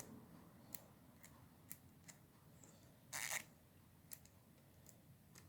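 Freshly rebuilt Snap-on FHX80A ratchet being handled and tried: faint scattered clicks, with one brief louder rasp of ratcheting about three seconds in.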